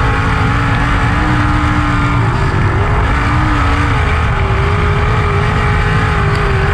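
Winged dirt-track sprint car's V8 engine at racing speed, heard from the cockpit: loud and steady, its pitch wavering with the throttle and shifting briefly a little over two seconds in.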